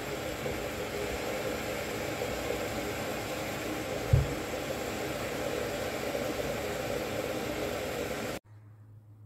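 Steady rushing background noise that starts and stops abruptly, with a single soft thump about four seconds in as potatoes are set down on the wooden table.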